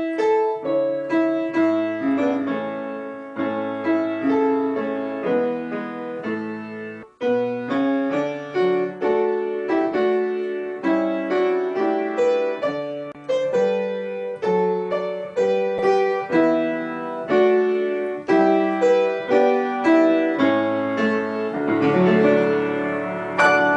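Grand piano played in a slow, even melody with chords, a new note or chord about every half second, each ringing and fading. There is one short break about seven seconds in.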